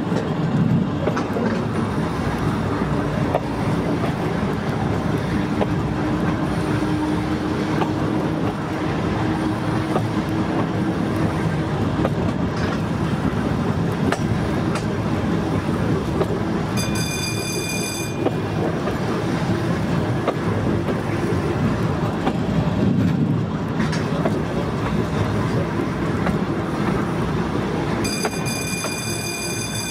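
Volk's Electric Railway car running along its narrow-gauge track, with a steady rumble of wheels on rail and a low motor hum. A high-pitched warning tone sounds twice, for about a second each: once about halfway through and again near the end.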